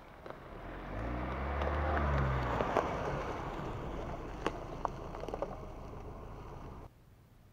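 A Ford Ranger Raptor pickup drives past close by, engine running, getting louder as it approaches and fading as it goes away. Its tyres crunch over dry leaf litter and mud, with a few sharp cracks as it passes. The sound cuts off abruptly near the end.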